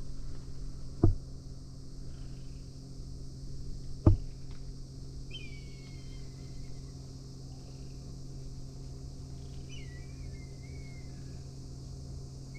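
Outdoor ambience over a steady low hum: two sharp thumps about one and four seconds in, then a bird calling twice with thin, falling whistled notes.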